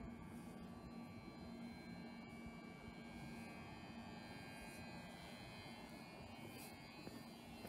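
Faint steady electrical hum over quiet room tone in an empty underground station platform; no train or other distinct sound.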